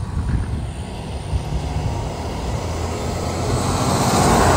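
A passing vehicle: its noise swells steadily and peaks near the end, over a low rumble.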